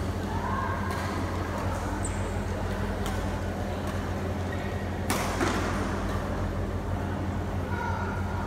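Badminton rackets striking a shuttlecock during a doubles rally: a few sharp light clicks, then one loud crack about five seconds in, over a steady low hum.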